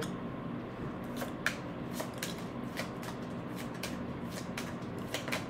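Tarot cards being shuffled by hand: a run of soft, irregular clicks and flicks as the cards slide against each other.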